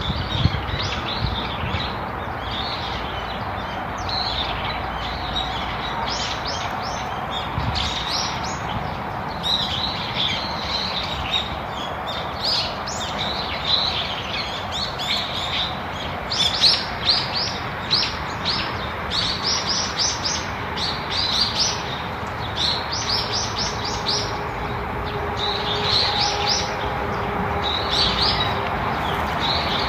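Small birds chirping and twittering, with many short high notes coming in quick runs and clusters, over a steady background hiss.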